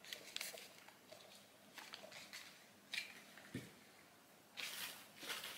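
Faint handling sounds of cosmetic products and their packaging: a few light clicks and taps, a soft thump about three and a half seconds in, and a short rustle near the end.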